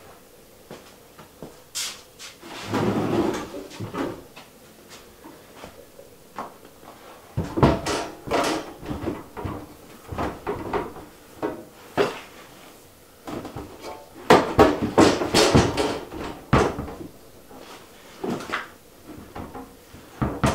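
Ryobi 21-gauge sheet-steel wall cabinet knocking, clanking and scraping as it is handled and set into place on the wall, in three main bursts with single knocks between.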